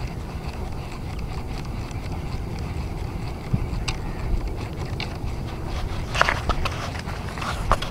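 Low, steady wind rumble on the microphone, with a few short clicks and scrapes in the second half, the loudest about six seconds in.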